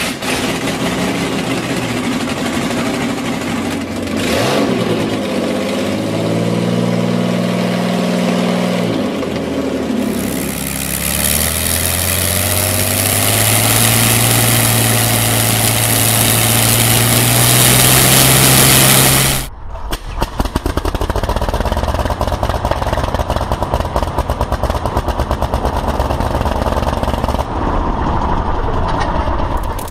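Allison V-1710 V12 aircraft engine running and revving, its pitch rising and falling, then climbing steadily to a high, hissing run. It cuts off suddenly about two-thirds of the way in. An Anzani air-cooled radial aircraft engine then runs with a rapid, even clatter.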